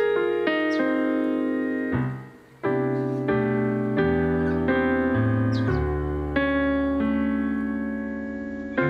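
Background piano music: slow, sustained notes and chords struck one after another, with a short break in the playing about two seconds in.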